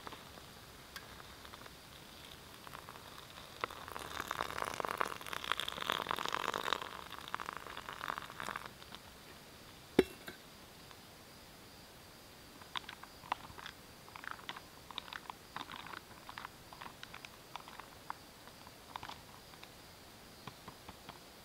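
Just-boiled water poured from a metal camp pot into a dehydrated-meal pouch, a splashing pour of about five seconds. About ten seconds in there is one sharp metal clink from the pot. After that come light, scattered crinkles and clicks as the pouch is handled and stirred.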